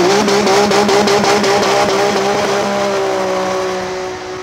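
Engine held at high revs under the title card, one steady high pitch with a slight wobble. A rapid crackle runs through the first couple of seconds, then the sound steadies and fades near the end.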